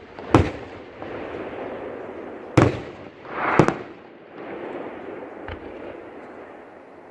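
Aerial fireworks shells bursting: three sharp bangs in the first four seconds and a fainter one a little later. Between them comes a steady rushing crackle of the display.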